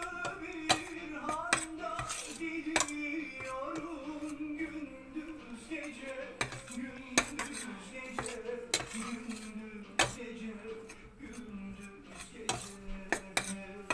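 A spoon scraping and clinking against a pan in irregular knocks as flour is stirred and roasted for halva, still short of browning. A melody plays underneath.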